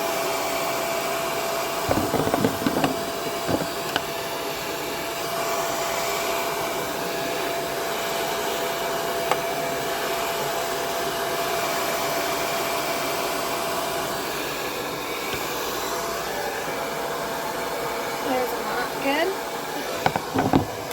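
L'ange blow dryer running steadily, its airflow hissing over a constant motor whine. A few short knocks sound about two to three seconds in.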